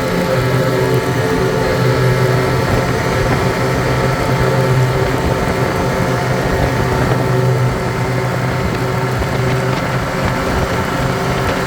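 Ski-Doo Skandic snowmobile engine running at a steady pitch, dipping slightly in loudness about eight seconds in.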